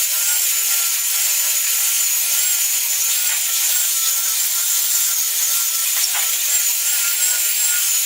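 Power sander running steadily during boat-building sanding: a continuous gritty hiss of abrasive on the surface over a high, steady motor whine.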